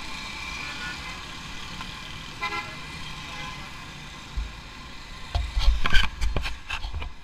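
Busy road traffic of cars and motorbikes heard from a moving motorcycle, with a vehicle horn tooting briefly twice in the first few seconds. From about five seconds in, heavy wind rumble and several sharp knocks on the microphone.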